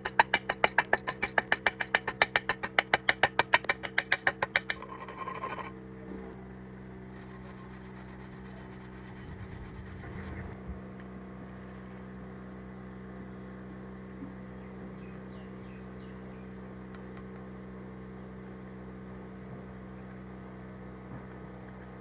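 Rapid, even scraping or rubbing strokes, about six a second, stopping after four to five seconds, then a steady low hum.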